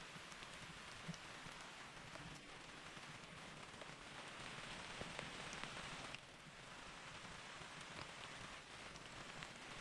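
Steady rain falling, a faint even hiss with scattered drop ticks, dipping briefly about six seconds in.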